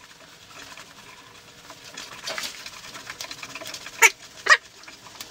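Carbon steel hand tap being turned by a T-handle tap wrench, cutting threads in a weld-filled steel hole, with faint, irregular scraping and squeaking. About four seconds in come two sharp clicks, half a second apart.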